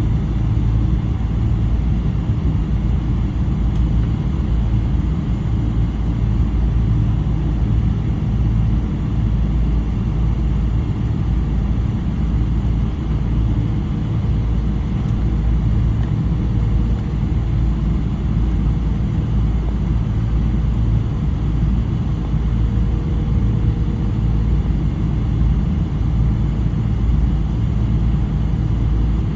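Steady, loud rumble inside the cabin of a Boeing 777-300, its Rolls-Royce Trent 800 engines running.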